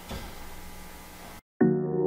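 Faint room tone that cuts to silence, then background music with sustained chords starts about one and a half seconds in.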